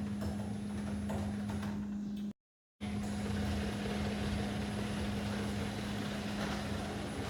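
Electric garage door opener running with a steady motor hum as the door moves, broken by a brief total dropout of sound about two and a half seconds in.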